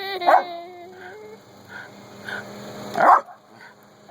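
Miniature schnauzer barking and yipping: a bark at the start, quieter yips through the middle, and a loud bark about three seconds in.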